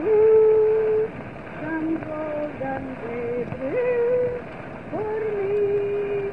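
A woman singing a slow hymn-like melody alone, in long held notes that slide up into each new pitch, over a steady hiss on a muffled, narrow-sounding recording.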